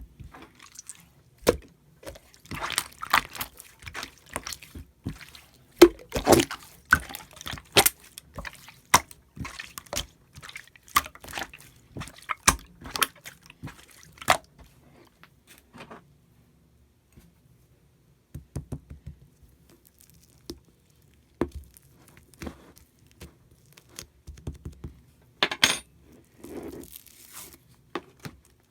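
Slime being squeezed and poked by hand, making irregular wet clicks and pops, with a short quiet pause about halfway through.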